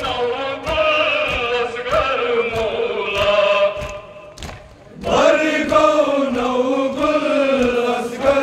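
A large group of men chanting a Kashmiri Muharram noha together in one line of melody, with regular slaps of matam chest-beating keeping time. The chant breaks off briefly a little over four seconds in and starts again.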